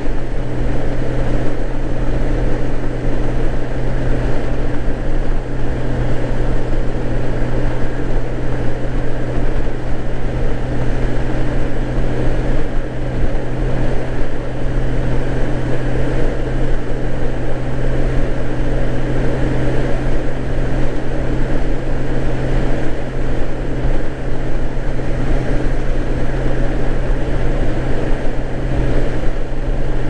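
Honda GL1800 Gold Wing's flat-six engine running at a steady cruise, an even engine hum with constant pitch under rumbling wind on the microphone.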